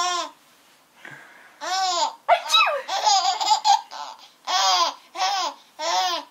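Baby girl laughing in a string of about six or seven short, high-pitched bursts, each rising and falling in pitch, with brief pauses for breath between them.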